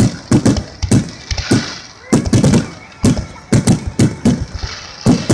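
Aerial fireworks bursting in a rapid, irregular string of sharp bangs, several a second, each trailing off in a short rumble.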